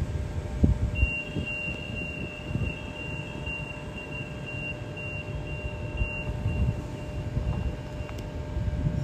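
Sydney suburban electric train running through the station with a low, uneven rumble and a steady high-pitched squeal, which starts about a second in and stops near the end.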